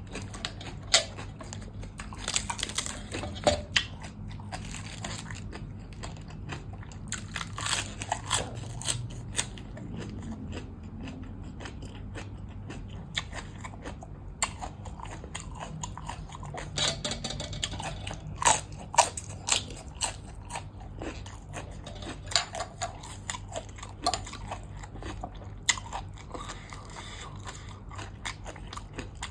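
A person chewing and biting crunchy food close to the microphone, during a meal of papaya salad with blue crab and crisp fresh okra. Sharp crunches and clicks come irregularly throughout.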